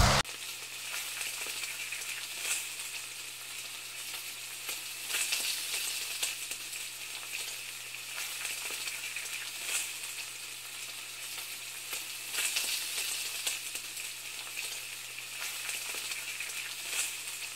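Steady frying sizzle with scattered louder crackles, over a faint low hum.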